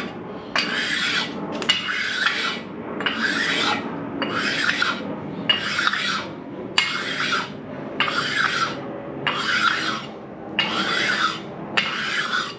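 A sharpening stone scraped back and forth over a 6.0 LS V8 engine block's deck surface, in about ten regular strokes a little over a second apart, each starting sharply. The stone is being used to dress the deck to an even surface finish.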